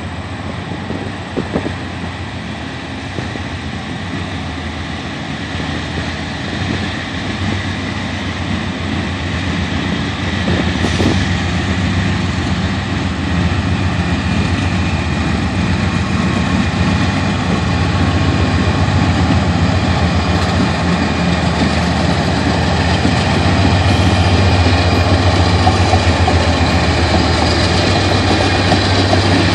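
Canadian Pacific GE AC4400CW diesel locomotives working under power, a deep steady engine drone that grows steadily louder as the train approaches and comes alongside.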